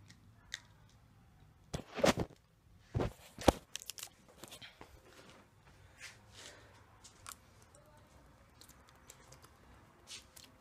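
Thin plastic water bottle being opened and handled: a few sharp crackles and crinkles of the plastic and cap about two and three seconds in, then fainter scattered ticks as he drinks from it.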